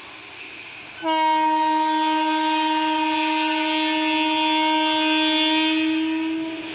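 Indian Railways WAP-4 electric locomotive sounding its horn as it approaches: one long blast at a single steady pitch, starting about a second in and stopping near the end. A faint rumble of the moving train runs underneath.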